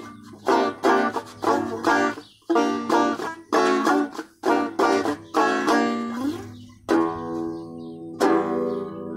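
Banjo being picked: a quick run of plucked, bright ringing notes, then near the end a couple of single notes let ring and die away.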